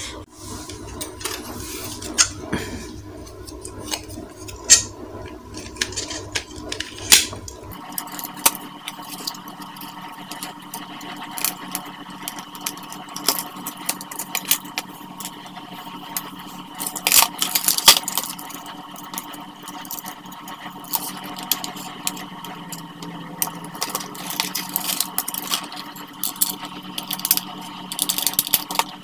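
Scattered plastic clicks, knocks and rattles as a toy RC car's plastic body shell and chassis are handled and fitted together. From about eight seconds in, a steady hum sounds underneath.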